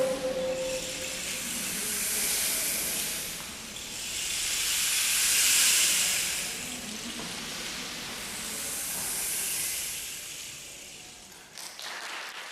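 Rain effect made by the choir: a high, rain-like hiss that swells and fades three times, with a few faint clicks near the end.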